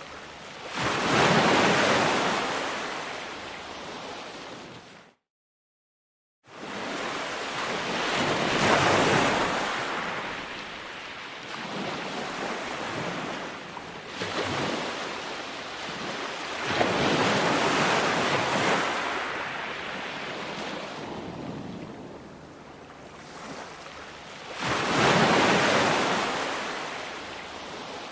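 Ocean waves breaking on a beach: slow surges of surf that swell and fade about every eight seconds. The sound drops out completely for about a second around five seconds in.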